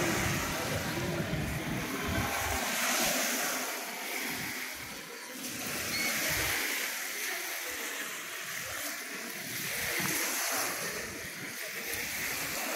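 Small lake waves washing onto a sandy beach, the hiss of the surf swelling and fading every few seconds.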